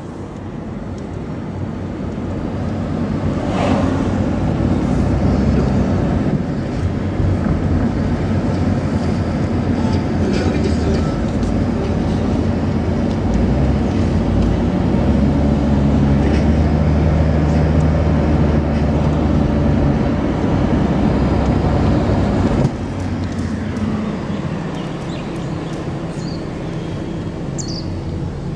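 Engine drone with tyre and wind noise heard from inside a moving car. It grows louder over the first few seconds, holds a steady low hum, then drops suddenly a little past the middle.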